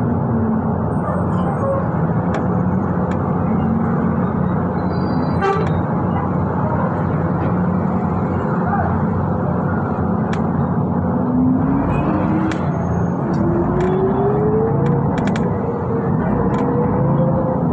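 City bus under way: steady road and running noise, with a drive whine that dips near the start, then climbs in pitch from about ten seconds in as the bus gathers speed, and holds.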